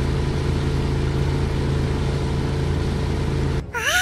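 Steady engine hum of a cartoon train. Near the end it cuts off and a short, high-pitched call rises and then falls.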